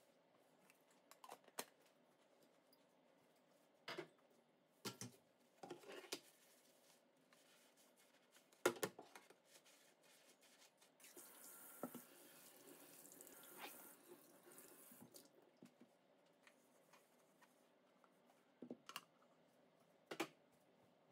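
Faint washing-up sounds: a ceramic mug and plastic cups knocking and clinking as they are picked up and set down, with the loudest knock about nine seconds in. A tap runs into the sink for a few seconds around the middle.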